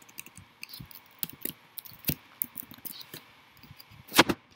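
Computer keyboard keystrokes and mouse or trackpad clicks in an irregular patter, with a louder cluster of clicks about four seconds in.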